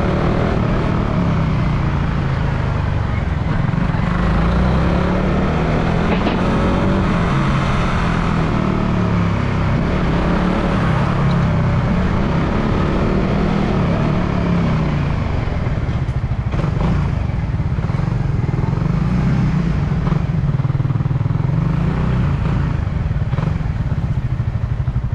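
Suzuki Raider R150 Fi motorcycle's single-cylinder four-stroke engine running on the move, its pitch rising and falling with the throttle, under a steady rush of road and wind noise.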